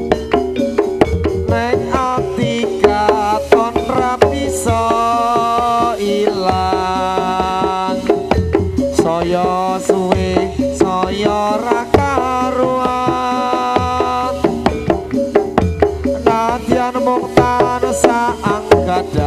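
Javanese jathilan dance accompaniment: hand drums beating a fast, busy rhythm under a pitched melody that wavers in places.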